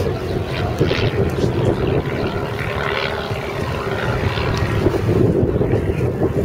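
Engine of a small propeller-driven aerobatic plane running steadily overhead, with wind buffeting the microphone.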